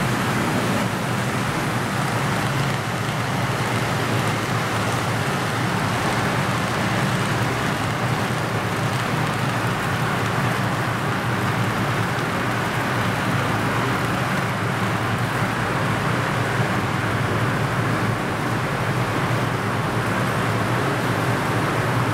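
HO scale model trains running on the track: the steady whir and rumble of locomotive motors and wheels on rail, even and unbroken.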